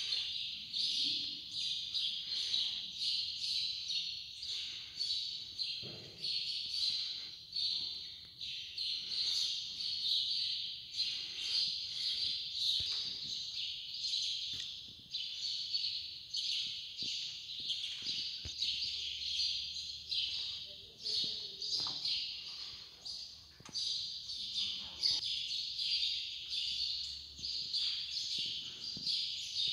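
A flock of small birds chirping without pause, many high calls repeating quickly and overlapping.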